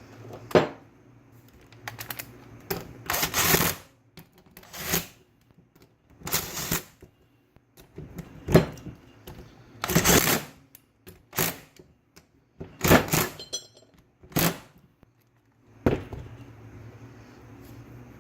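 Metal parts of a power steering pump being handled and fitted together: about a dozen irregular clinks and knocks, some in short rattling runs.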